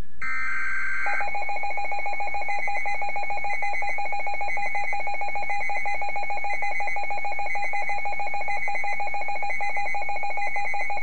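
Emergency alert broadcast signal: a short burst of warbling high data tones, then a steady, rapidly pulsing alert tone held for about ten seconds, with a chirping pattern of higher tones above it, announcing a severe weather bulletin.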